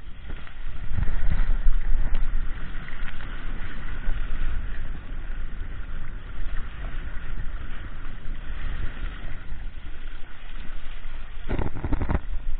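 Water rushing and splashing along the hull of a Hobie Adventure Island sailing kayak under sail, with wind buffeting the microphone. A couple of louder splashes come near the end.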